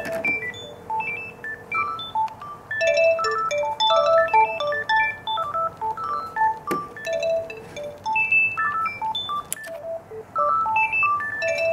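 Gigaset A400 and A510 cordless handsets ringing for an incoming call, playing electronic melody ringtones of short notes at changing pitches that repeat. A single knock about seven seconds in.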